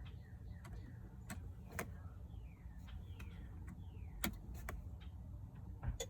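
Scattered sharp clicks over a low steady hum from a 2009 BMW X5 E70 that will not start: no cranking or engine running is heard, only clicking.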